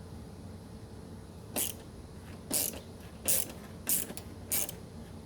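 A ratchet wrench backing out a 10 mm screw: five short clicking bursts, one with each back-swing of the handle, a little over half a second apart, starting about a second and a half in.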